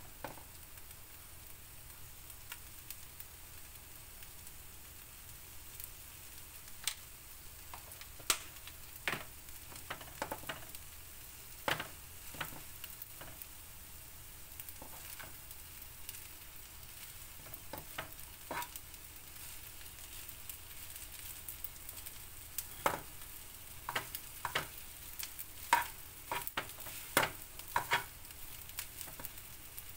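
Fried rice sizzling in a frying pan while a metal spatula stirs and tosses it, with sharp scrapes and clinks of the spatula against the pan scattered through, coming thicker in the last several seconds.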